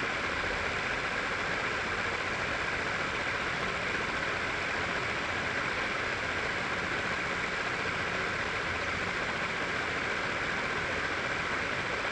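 Small high-speed DC motor spinning a cardboard fan, giving a steady whir with no change in speed.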